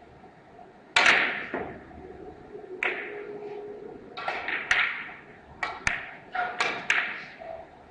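About eight sharp clacks of carom billiard balls striking each other, heard from neighbouring tables, the loudest about a second in. Each clack echoes briefly in the hall.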